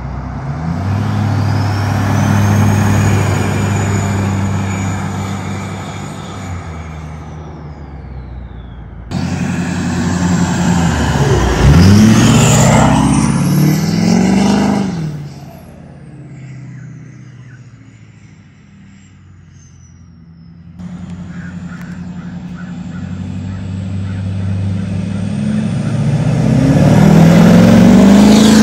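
Lifted Duramax diesel pickup with a big 64 mm turbo (LLY) on three drive-by passes: a high turbo whistle rides over the diesel engine, rising, holding and falling as the truck passes, with the pitch dropping as it goes by on the middle pass. The last pass is a hard acceleration, engine and turbo rising in pitch and loudest near the end.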